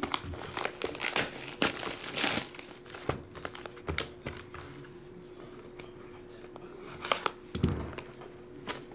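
Cellophane shrink wrap on a trading-card hobby box crinkling and crackling as the box is handled and unwrapped, busiest in the first couple of seconds with scattered crackles after. A soft knock about three quarters of the way through.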